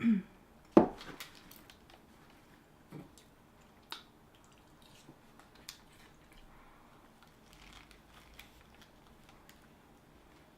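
Close-miked eating sounds: a loud knock about a second in, then faint, scattered mouth clicks and quiet chewing.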